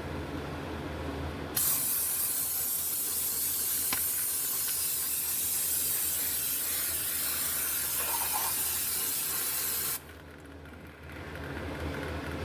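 Aerosol can of brake cleaner spraying in one long continuous hiss of about eight seconds that starts and cuts off suddenly, degreasing the newly bolted-on flywheel before the clutch goes in.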